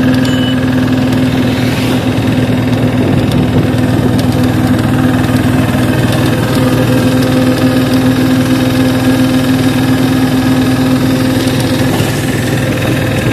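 Engine of a tempo, a three-wheeled passenger auto-rickshaw, running steadily as it drives along, heard from inside the vehicle with a loud, even hum.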